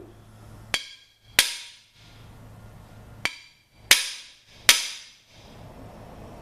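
Hammer blows on the driving bar of a cam bearing installer, pushing a cam bearing into its bore in a big-block Chevy 396 block: five sharp metallic strikes, the three loudest ringing briefly after each hit.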